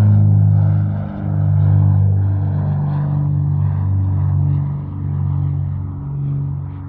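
Cinematic jet aircraft sound effect: a loud, low droning rumble with steady deep tones, dipping briefly about a second in and starting to fade away near the end.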